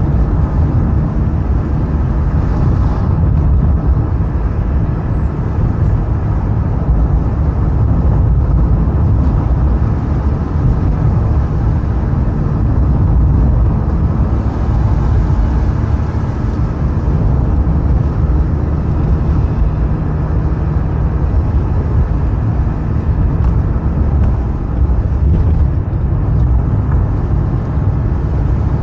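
Car driving steadily along a road: continuous engine and tyre noise, heaviest in the low end, with a faint steady hum and no sudden changes.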